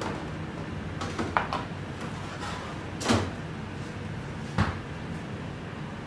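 A few clinks and knocks of stainless cookware and a small bowl being handled as cornstarch is mixed with water, the loudest a dull knock about two-thirds of the way through, over a steady low kitchen hum.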